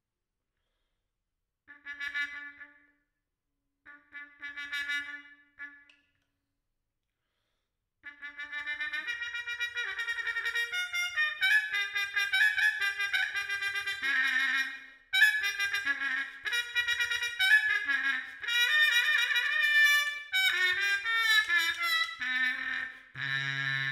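Unaccompanied solo trumpet playing: two short held notes, then after a pause a fast, unbroken run of many notes, ending on a low note.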